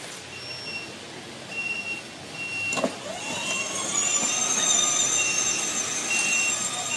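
Children's battery-powered ride-on car: short high beeps repeating about once a second, then a click about three seconds in. The electric drive motors then whine up in pitch as the car pulls away.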